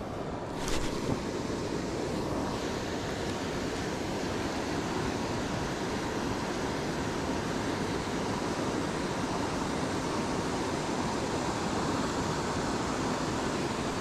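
Steady, even rush of a small waterfall pouring into a river. A brief knock comes just under a second in.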